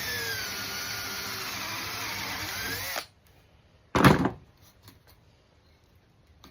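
Drill press boring into hardwood, the cutting pitch wavering as the bit is fed in, then cutting off about three seconds in; the bit cut fast enough to break the wood out. About a second later comes a single loud knock.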